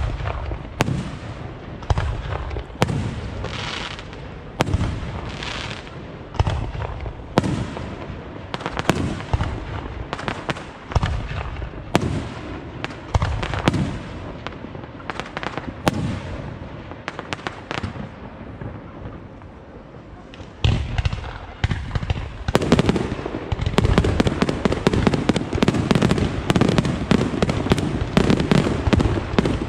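Aerial fireworks bursting one after another, about one bang a second, each with a low boom. About two-thirds of the way through, the bursts run together into a dense, continuous barrage of rapid bangs and crackling.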